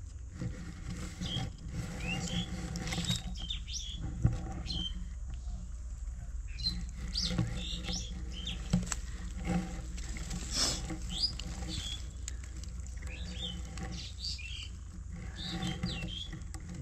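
Small birds chirping in short, quick calls again and again, over a steady low hum, with a few sharp clicks, the loudest about four seconds in.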